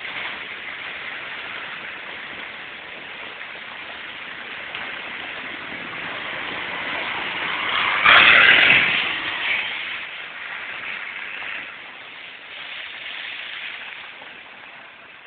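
Off-road 4x4 driving past close by over muddy ground, its engine and tyre noise building, loudest about eight seconds in, then fading away.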